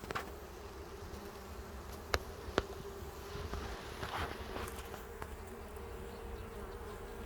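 Honeybees buzzing steadily around an open hive, with two sharp knocks about two seconds in, half a second apart.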